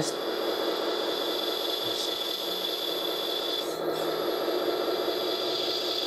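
A 1/14 RC hydraulic wheel loader's hydraulic pump running with a steady hum while the fork width is being adjusted hydraulically.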